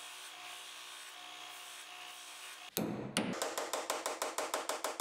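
A disc sander runs steadily, then about three seconds in it gives way to quick, even hammer taps, about five a second, driving a steel pipe into a hole in a beech wood block.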